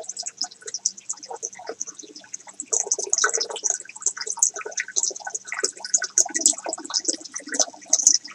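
Water pouring from a DIY filter's return pipe into a stock tank, splashing and bubbling in an uneven patter.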